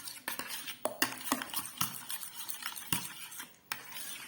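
A utensil stirring a thick cornstarch cream in a pot, scraping and clicking irregularly against the sides and bottom, a few knocks a second; the coconut oil is being stirred in to melt while the mixture is still hot.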